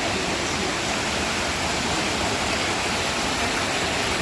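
Steady rushing of flowing water from a stream or small waterfall, an even, unbroken noise.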